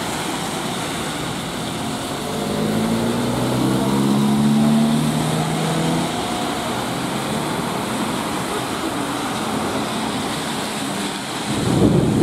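Traffic on a wet road: a steady hiss of tyres on wet asphalt. A trolleybus passes about two to six seconds in with a low hum that swells and fades. Near the end a route minibus drives past close by, louder, its engine and tyres on the wet road.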